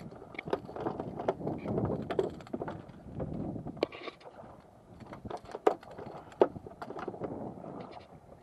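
Small waves slapping against a bay boat's hull, with wind on the microphone. A few sharp knocks on the deck come in the middle.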